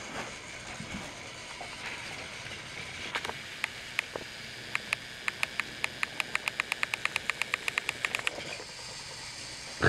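Trackmaster Percy battery-powered toy engine running along its plastic track with a steady motor whir, and a rapid, even clicking of about five a second that grows louder as it approaches before stopping a little after eight seconds in. A single sharp knock comes right at the end.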